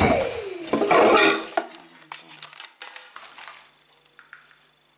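A loud clatter as a camera is knocked over and rattles to rest, dying away over about a second and a half. Faint clicks and rustling follow.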